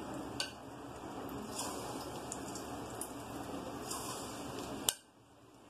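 Coated chicken pieces deep-frying in hot oil in a kadai: a steady sizzle with scattered crackles. Near the end there is a sharp click, after which the sizzle goes much quieter.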